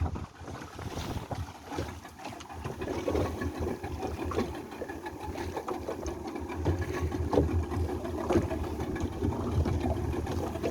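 Boat motor running steadily at idle, with scattered short clicks and knocks over it.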